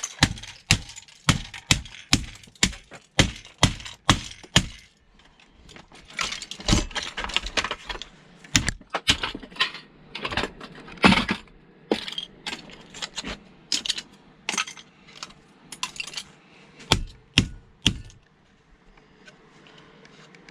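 Sharp metallic knocks as a stuck part of an old sewing machine is struck and worked loose, about two a second at first. Then comes a stretch of denser clattering, and a few more single knocks near the end.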